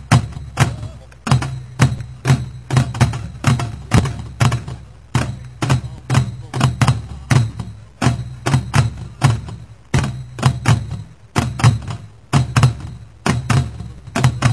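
Korean buk barrel drums beaten hard in a fast, driving rhythm by a pungmul ensemble, each stroke a deep thump with a sharp attack.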